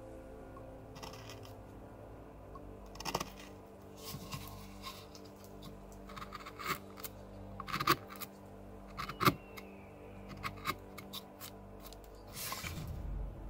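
Hand carving gouge cutting into cottonwood bark: scattered sharp clicks and short scrapes as the blade bites in and chips break away, with a longer rustling scrape near the end. Faint background music runs underneath.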